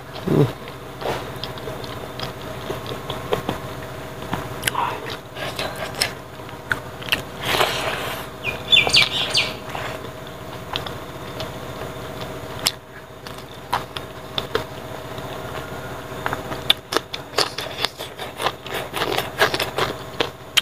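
Close-up eating sounds: chewing and lip-smacking as a man eats rice and pork trotter with his fingers, with many short wet clicks and smacks. A faint steady hum runs underneath.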